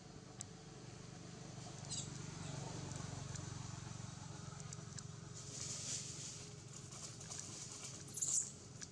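Macaques on dry leaf litter: a few brief high-pitched squeaks, the loudest near the end, and a spell of leaf rustling in the middle, over a steady low background hum.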